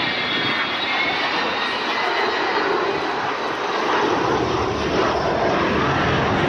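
Avro Vulcan XH558's four Rolls-Royce Olympus turbojets roaring as the bomber flies past. High whining tones sink slightly in pitch over the first couple of seconds, and the low rumble grows heavier from about four seconds in.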